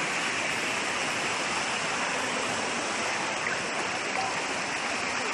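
A steady, even rushing noise with no breaks or changes in level.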